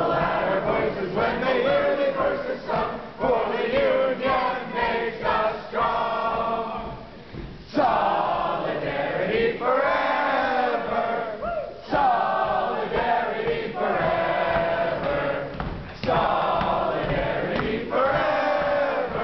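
A crowd of many voices singing together in unison, in phrases that start afresh about every four seconds.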